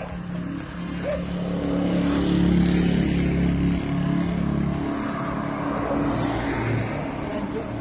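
Motor vehicle engine running as it passes along the road close by, loudest about two to three seconds in and swelling again near the end.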